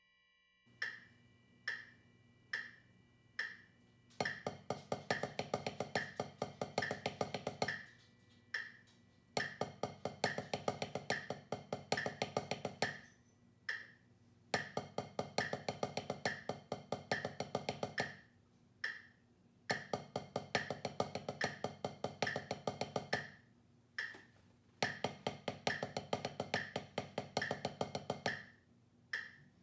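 Wooden drumsticks playing rapid strokes on a drum practice pad, in phrases of about three and a half seconds with short rests between. A metronome clicks at 70 beats per minute throughout, and four clicks count in before the playing starts.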